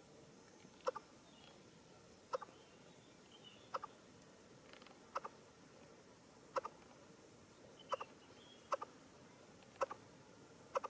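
A young coucal giving short, sharp double clicking calls, repeated about every one to one and a half seconds, with faint chirps in between.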